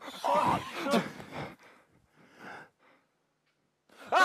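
Breathy gasps and short voice sounds for about a second and a half, then a pause, then near the end several children cry out together in one long held 'aah'.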